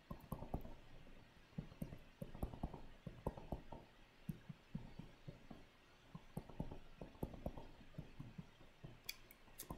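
Stylus writing on a tablet screen: faint, irregular clusters of small taps and scratches as short pen marks are drawn.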